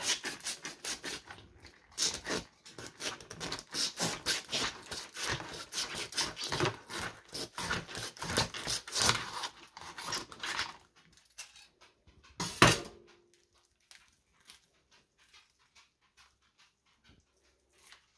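Kitchen knife crunching through a perch's gills and hard throat, a dense run of irregular crackling crunches for about ten seconds. A single sharp knock follows about twelve seconds in, then only faint handling noises.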